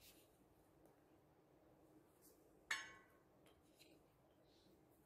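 Near silence, broken once about two and a half seconds in by a single short clink with a brief ring.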